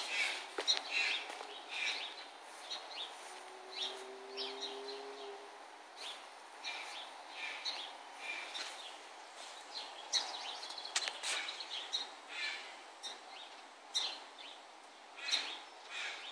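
Birds chirping and singing on and off in short calls over a steady background hum.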